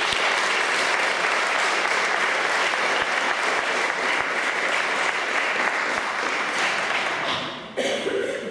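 Audience applauding steadily, dying away near the end as a voice starts.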